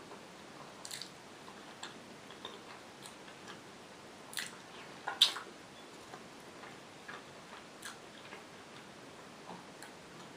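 Close-miked finger-food handling: sparse small clicks and sticky taps as fingers pick at fried potatoes and dip into a glass of red sauce, with a sharper click about five seconds in.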